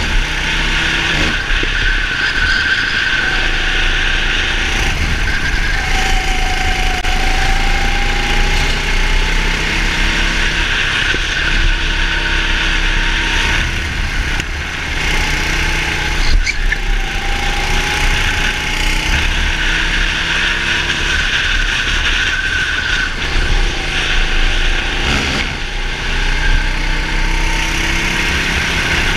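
Go-kart engine running hard, its pitch climbing as it accelerates and falling back as it slows into corners, over and over.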